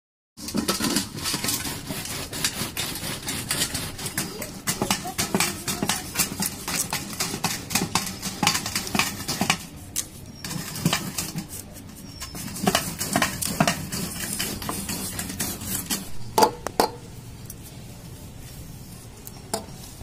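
Peeled ash gourd rubbed on a metal grater in a steel bowl: fast, repeated rasping strokes with metallic clinks. It starts half a second in, and a few louder knocks near the end close off the grating.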